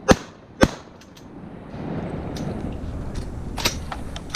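Two shotgun shots about half a second apart, followed by a few lighter clicks and a steady rustling noise.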